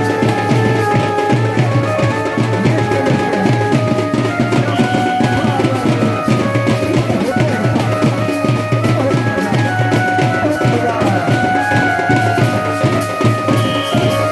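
Loud music with fast, steady drumming and held melody notes over it.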